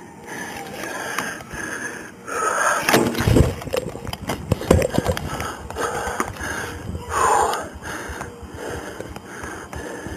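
A person breathing hard and rhythmically close to a body-worn camera. From about two and a half to five seconds in, loud rustling and knocking of clothing and gear against the camera covers the breathing.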